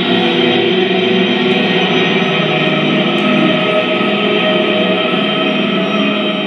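Music: a dense wash of sustained, held tones with a faint choir-like quality, easing slightly near the end.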